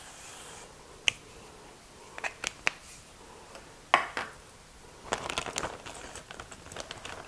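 Cooking spray hissing into an empty slow-cooker crock, stopping about half a second in. It is followed by a few sharp clicks and knocks as things are set down, the loudest about four seconds in, then crinkling of a resealable plastic bag of chicken being opened near the end.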